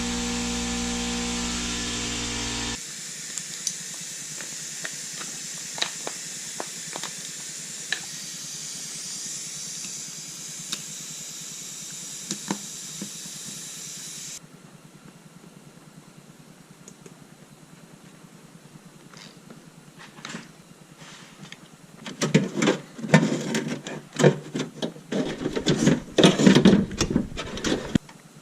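A power drill runs steadily for the first two to three seconds, drilling out the rivets that hold the window regulator in the door. Then comes a steady hiss with scattered light clicks, and from about six seconds before the end a run of loud, irregular metal clattering and knocking, the loudest part.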